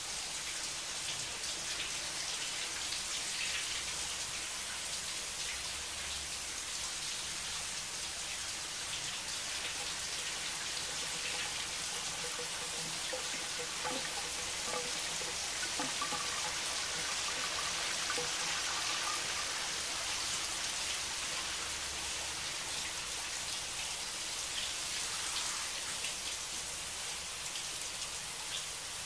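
A shower running, a steady hiss of water spraying from the showerhead and splashing into a bathtub.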